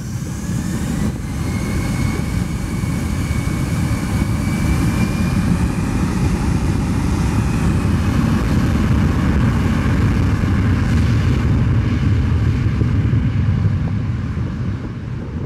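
Twin rear-mounted turbofan engines of a Fokker regional jet spooling up for takeoff. A whine rises over the first couple of seconds, then a loud jet roar builds and eases slightly near the end.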